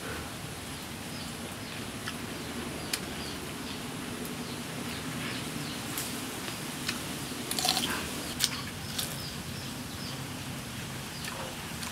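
Rural outdoor background with short high chirps from a bird or insect, repeating every half second or so over a steady low noise. A few sharp clicks and crunches from eating by hand out of a bowl, the loudest cluster about two-thirds of the way through.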